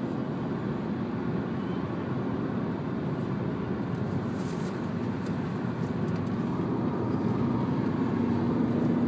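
Steady low rumble of a car on the road, heard from inside the cabin, growing slightly louder near the end.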